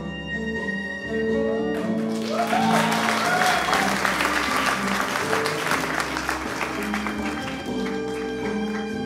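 Stage music with sustained held notes, joined about two seconds in by audience applause and a few cheers. The applause dies down near the end while the music carries on.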